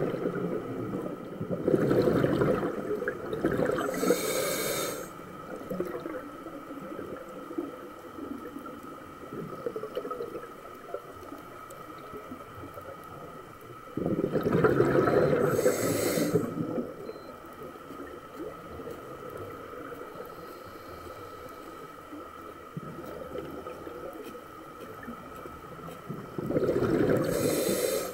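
Scuba diver breathing through a regulator underwater. Each breath brings a loud rush of exhaled bubbles with a hiss, and the breaths come about every twelve seconds, with quieter water noise and a faint steady hum in between.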